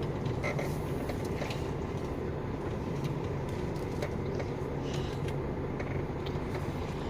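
KAMAZ truck's diesel engine running steadily at low speed, heard from inside the cab as the truck rolls slowly into a parking area, with a few faint clicks and rattles.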